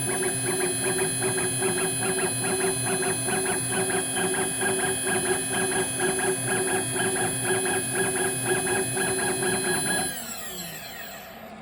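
Homebuilt CNC machine peck drilling 1 mm holes: the spindle motor whines steadily while the stepper-driven axis pulses in a fast, even rhythm. About ten seconds in, the spindle switches off and spins down, its whine falling in pitch and fading.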